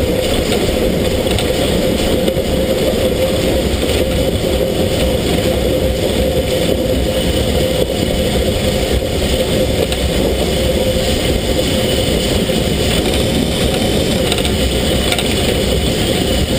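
SZ 33 037, a 2-10-0 steam locomotive, running along the line, heard up close from its side: a loud, steady rush of noise from the moving engine with no distinct exhaust beats.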